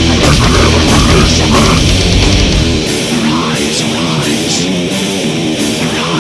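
Heavy metal music with electric guitar; the deep bass drops away about halfway through.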